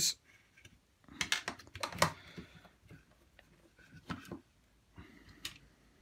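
Scattered light clicks and knocks of a plastic washing-machine drain pump being taken apart by hand: Torx screws coming out and being set down on the workbench, and the housing handled. There is a small cluster of clicks a second or so in, and a few more around four seconds.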